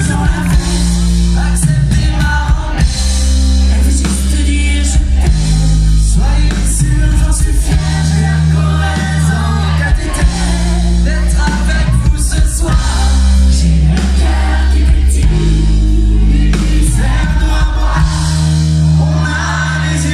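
Live pop band playing with singers, heard from within the audience, with heavy, sustained bass notes under the vocals.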